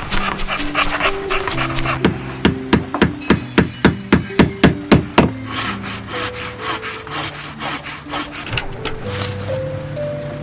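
A rapid run of about a dozen sharp knocks, about four a second, a couple of seconds in, with scratchy rubbing and clicking around it: work sound effects of tools on wood or material. Soft background music with held notes plays under it.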